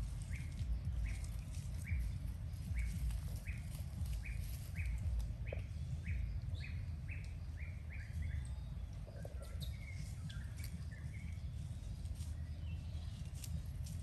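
A small animal or bird giving a run of short, high chirps, each dropping slightly in pitch, about two a second, then a few scattered chirps. Underneath is a steady low rumble with occasional clicks.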